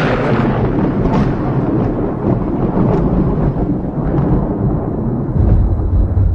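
Loud, continuous rumbling noise, heaviest in the deep bass, swelling in the bass about five and a half seconds in.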